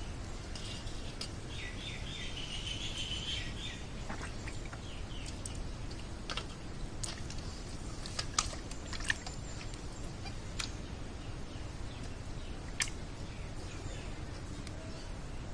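Birds chirping in a rapid twitter for a couple of seconds, over a steady low outdoor rumble, followed by a few scattered sharp clicks.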